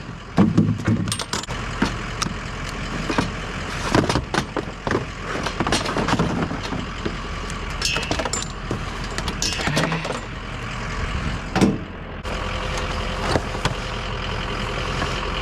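Irregular knocks and clatter of scrap items, such as old electronics, being handled and set down, over the steady hum of a vehicle engine idling.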